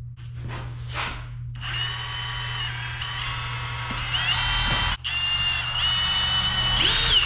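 Electric drill running while drilling the hole for a knife handle, a steady high whine that steps up in pitch a few times. It cuts out for a moment about five seconds in, starts again, and rises in pitch just before stopping near the end.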